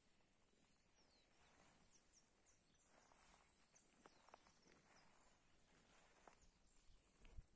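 Near silence: faint open-air pasture ambience with a few faint high chirps and small clicks, and one soft low thump near the end.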